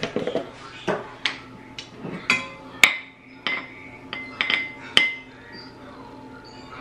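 Clinks and knocks of kitchenware as cornmeal is measured: a glass jar's plastic lid twisted off and set down, and the jar and a ceramic measuring cup tapping against a stainless steel mixing bowl, several clinks ringing briefly.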